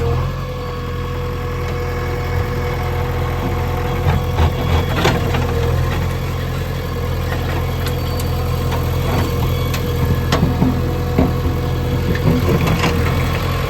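JCB 3DX backhoe loader's diesel engine running steadily, with scattered knocks and clatters through the middle and second half.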